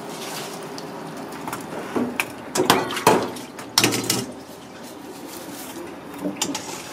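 Stainless-steel kitchenware clattering in a steel sink: several loud knocks and scrapes in the middle as a mesh colander and a steel tray are handled, over a steady background hiss. Near the end come a few smaller clicks as live loaches are tipped from the tray into the colander.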